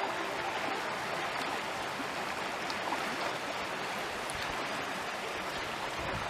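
Mountain stream water flowing, a steady, even rush of water.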